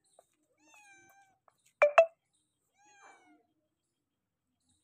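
Grey tabby cat meowing twice, a second or two apart. Between the meows come two sharp knocks close together, the loudest sounds.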